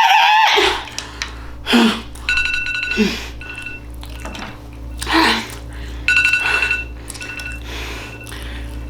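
Digital timer alarm beeping in repeated bursts of rapid high beeps: the one-minute challenge countdown has run out. Short mouth noises come every second or two between the beeps.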